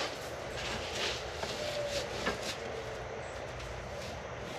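A few light clicks and taps of a black metal garden trellis frame being handled and shifted into place, over a steady low background hum.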